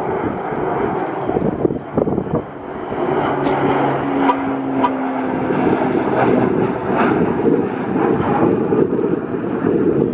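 Twin-engine Beechcraft King Air turboprop passing low overhead on approach with its gear down. Its engines and propellers make a steady rushing noise, with a propeller hum that holds for a few seconds in the middle.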